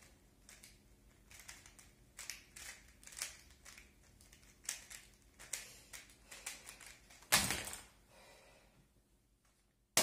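A 3x3 Rubik's speedcube being turned by hand: irregular runs of quick plastic clicks and clacks as its layers snap round. About seven seconds in comes one much louder clack as the solve ends, and there is a sharp click at the very end.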